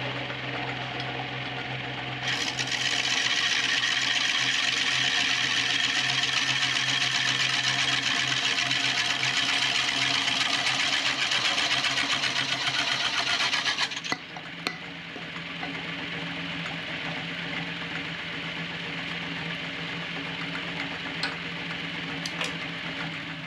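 Wood lathe running with a steady hum while a hand-held turning tool cuts inside the mouth of a spinning wooden vase, a loud even hiss of cutting from about two seconds in until about halfway. Then the lathe runs on alone, more quietly, with a few small ticks.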